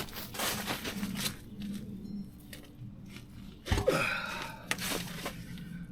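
Knocks, scraping and clunks as a motorcycle's rear wheel and tire are wrestled out of the swingarm, with a heavy thump about four seconds in.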